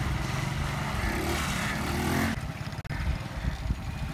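Small motorcycle engines running, with a rise in engine pitch as one revs. About two seconds in the sound changes abruptly to a quieter engine running.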